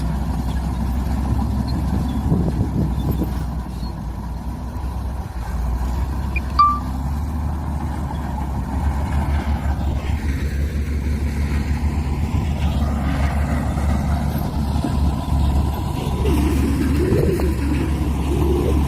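Heavy diesel earthmoving machinery running, a steady low engine rumble with a pulsing beat. A brief high-pitched chirp sounds once, about six and a half seconds in.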